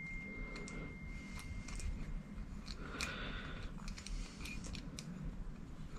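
Faint metallic clicks and scrapes from a small hex key turning a grub screw in a tapped hole in a milling machine's motor step pulley.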